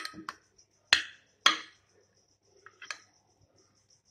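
A metal spoon clinking against the sides of a glass baking dish while stirring chicken pieces in a thick spice marinade: about five sharp clinks at uneven intervals.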